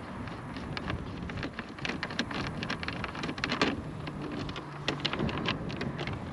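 Close handling noise: a dense patter of irregular clicks and taps over light wind noise.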